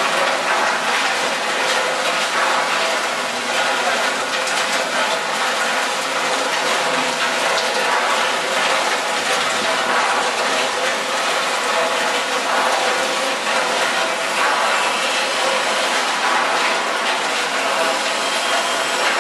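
A rotating hexagonal stainless-steel drum of a potato chip seasoning machine, with fried chips tumbling inside it. It makes a steady, dense clatter of many small ticks.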